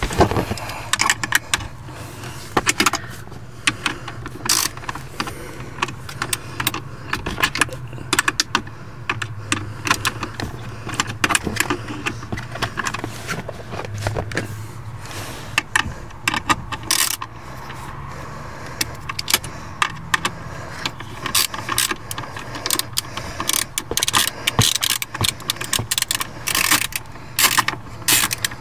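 A ratchet with a 7mm socket clicking in quick, irregular runs as it backs out a screw holding a lighting control module to its steel bracket, over a steady low hum.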